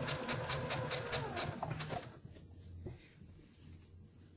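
Brother electric sewing machine stitching, with rapid, even needle strokes that stop about two seconds in. A single small click follows about a second later.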